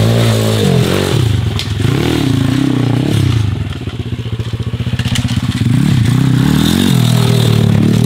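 MRF 140 pit bike's 140 cc single-cylinder four-stroke engine being ridden, revving up and down with the throttle. It drops to a lower, quieter note for a couple of seconds in the middle, then picks up again, with a few sharp knocks along the way.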